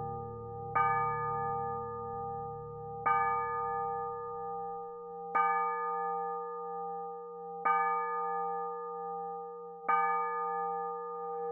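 A church bell tolling with five evenly spaced strokes about two and a half seconds apart. Each stroke rings on into the next, with a steady hum underneath.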